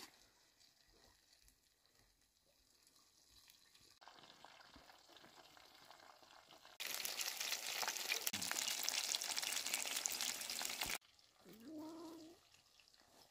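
Food frying: a faint sizzle that swells into a loud crackling sizzle for about four seconds, then cuts off abruptly. Shortly after, a brief pitched sound rises in pitch.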